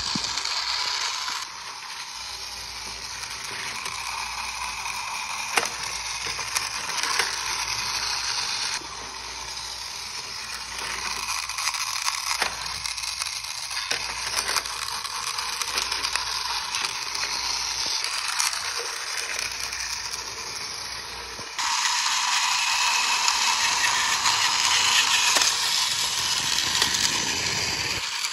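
Battery-powered TOMY toy lorry driving along plastic road track, its newly fitted small electric motor and plastic gears running steadily. The sound jumps in level abruptly a few times.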